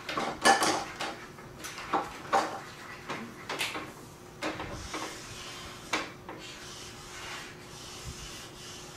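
Felt-tip markers scribbling on paper on a tabletop: short, irregular scratchy strokes, a few louder ones near the start.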